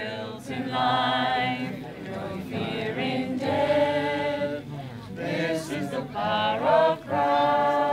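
A group of voices singing together in long held notes, with short breaks between phrases.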